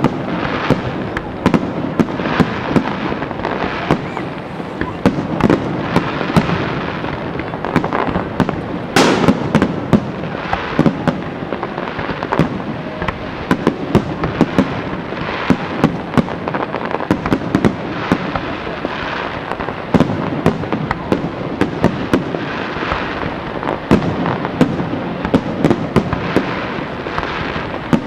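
Aerial fireworks display: shells launching and bursting in a continuous barrage, many sharp bangs a second over a steady crackle and rumble. One blast about nine seconds in is louder than the rest.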